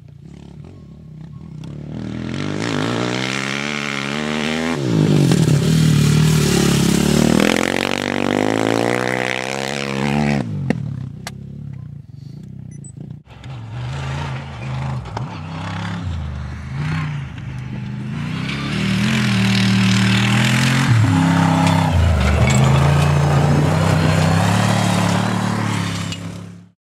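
Rally-raid vehicles racing past on a gravel stage: first an off-road motorcycle, then a pickup-style rally car. The engines rev and change pitch as they pass and shift gears, with gravel and dust spraying. The sound cuts off abruptly near the end.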